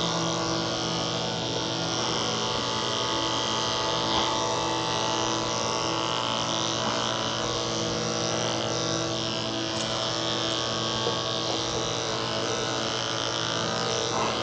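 Electric dog grooming clippers running with a steady hum as they are worked through a cocker spaniel's coat.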